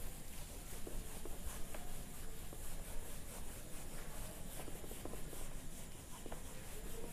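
Hand-held eraser wiping a whiteboard in repeated strokes, a quiet rubbing.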